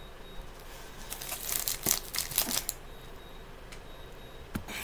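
Plastic sweet-wrapper packaging crinkling as it is handled, in a quick cluster of rustles lasting about a second and a half, with a single sharp knock near the end.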